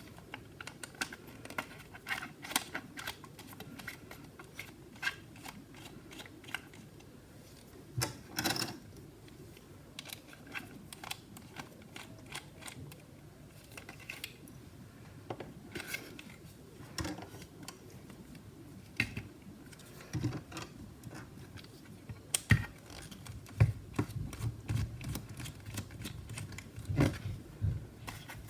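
Scattered small clicks and ticks of a precision T7 Torx screwdriver backing out the small screws that hold the hard drive bracket inside a 2014 Mac mini. A few sharper knocks and low thumps come in the last several seconds as metal parts are handled.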